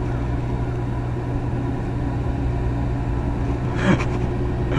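Steady low drone of a returning fishing boat's engine running across the harbour, with one brief short noise about four seconds in.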